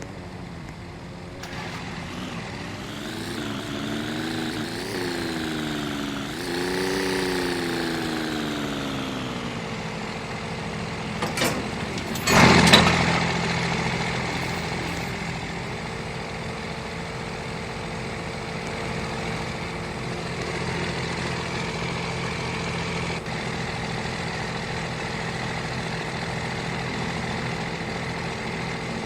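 A motor vehicle engine rising and falling in pitch several times, as when accelerating and easing off, then a loud sudden clatter about twelve seconds in, after which the engine runs at a steady pitch.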